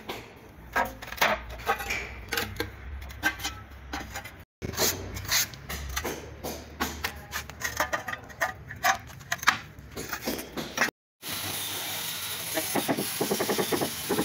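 A white ceramic tile being scored by hand along its cut line: a quick, irregular run of sharp scratches and clicks. It breaks off suddenly twice, and near the end a steady hiss takes over.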